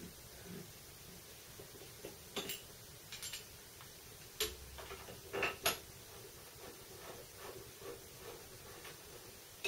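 Quiet, scattered metallic clicks and light knocks as a metal end plate is handled and fitted over the end of a milling machine table's X-axis ball screw.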